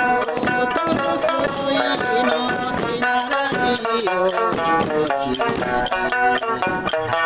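Okinawan eisa folk song playing, with voice and plucked strings over steady drum beats.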